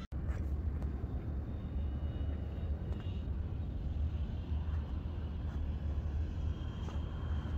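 Faint high whine of the FMS F7F Tigercat RC model's twin electric motors and propellers as the plane flies a circuit far off, coming and going, over a steady low rumble.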